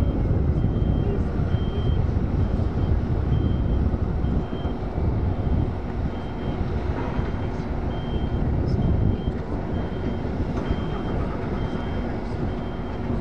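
Reversing alarm of a construction vehicle beeping steadily, short high beeps a little under twice a second, over the low diesel rumble of runway-resurfacing machinery.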